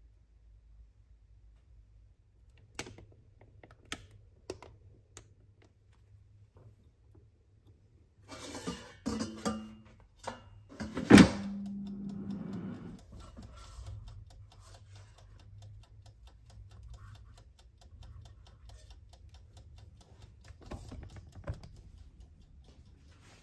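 Kitchen handling noises: scattered clicks and clatter of utensils and crockery, with one loud knock about eleven seconds in followed by a short hum.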